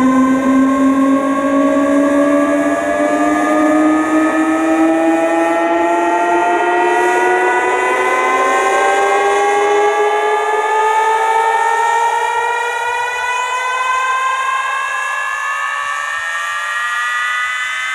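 Outdoor PA speaker stacks playing a loud sustained tone with several overtones that glides slowly upward in pitch; the lowest part fades out about ten seconds in.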